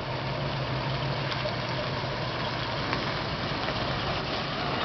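Diesel truck engines running steadily at low speed as decorated trucks roll past, a constant low engine note.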